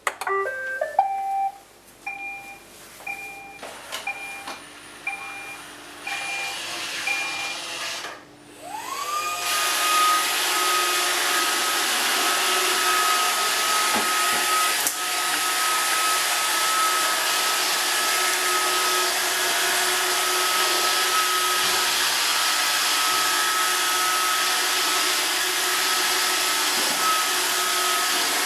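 Roomba robot vacuum starting up: a short electronic chime, then a few seconds of evenly spaced beeps alternating between a low and a high pitch. About eight seconds in its motors spin up with a rising whine and settle into a steady vacuum run with a high whine.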